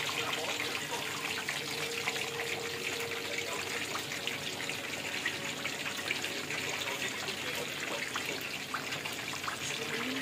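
Whole giant gourami deep-frying in a large aluminium wok of hot oil: a steady sizzle full of small pops and crackles as the oil bubbles around the fish.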